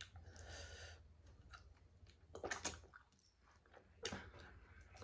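A person chewing food close to the microphone, with sharp mouth clicks and smacks: the loudest is a cluster about two and a half seconds in, and another comes just after four seconds.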